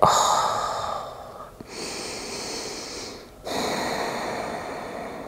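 A woman breathing deeply and audibly close to the microphone while she holds a stretch: three long, slow breaths, each lasting one and a half to two seconds.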